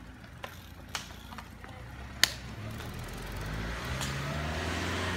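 A few sharp clicks in the first half, the loudest a little after two seconds in, typical of road cyclists' cleats clipping into their pedals as they set off. A motor vehicle then drives up, its engine and tyre noise rising over the last couple of seconds.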